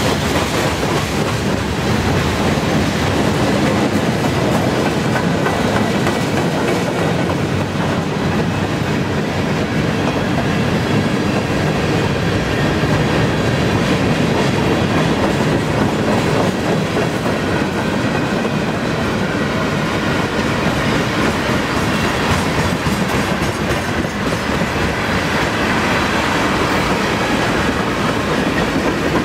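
Freight cars of a slow-moving freight train rolling steadily past: continuous rumble and clickety-clack of steel wheels over the rail joints.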